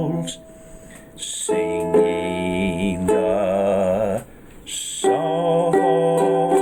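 Music: a strummed ukulele with a sung melody on long held notes, dropping away briefly about four seconds in before the strumming picks up again.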